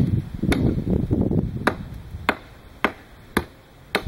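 Hatchet chopping down the edge of a thin wooden slat stood on a chopping stump, taking off big chunks: a steady run of sharp strikes, about two a second, heavier and crunchier for the first second or so, then crisper.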